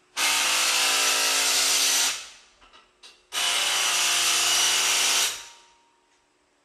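Power tool run twice, about two seconds each time with a short pause between, winding down after each run; a mechanic is using it while fitting coilover suspension.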